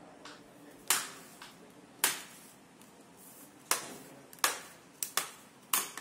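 Plastic snap clips of a Lenovo Flex 2-14 laptop's bottom cover popping loose one by one as a plastic pry tool works along the seam. There are about seven sharp snaps, the last few coming closer together.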